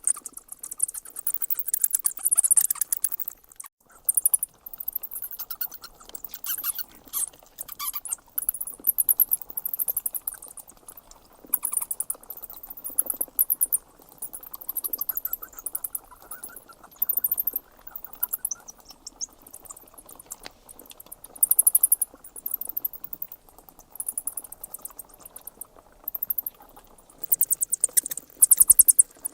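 Bats squeaking: bursts of rapid, very high-pitched chittering squeaks, each a second or two long, coming one after another with short pauses between.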